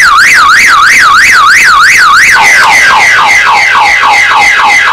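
Very loud siren from the built-in speaker of a Hikvision iDS-2SK8144IXS-D/J PTZ camera: its anti-vandal alarm, set off by the shock-detection sensor when the camera is shaken. A wail rising and falling about three times a second switches, a little over two seconds in, to a faster series of falling sweeps, then cuts off suddenly.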